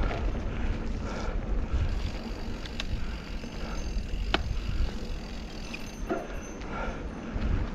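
Mountain bike rolling over a dirt trail: wind buffeting the camera's microphone and tyre and frame rumble, with a few sharp clicks and knocks from the bike over the bumps.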